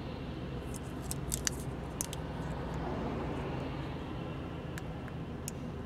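Steady low hum of a car interior, with a few short sharp clicks as the buttons of a handheld digital voice recorder are pressed, several of them close together about a second in and a couple more near the end.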